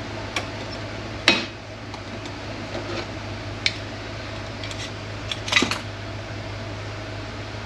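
Metal parts of a Mercedes 722.9 automatic transmission clinking and clattering as they are handled during teardown: a few sharp knocks, the loudest about a second in and another cluster around five and a half seconds, over a steady shop hum.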